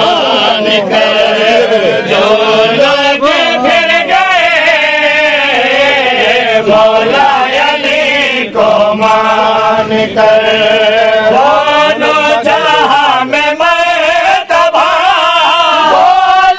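Men's voices chanting a devotional Urdu qasida in praise of Imam Ali, sung in long melodic phrases with brief breaks between them.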